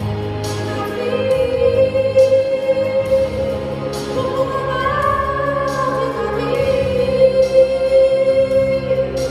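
A female singer holding long, sustained notes over instrumental accompaniment, with slow rises and falls in pitch between the held notes.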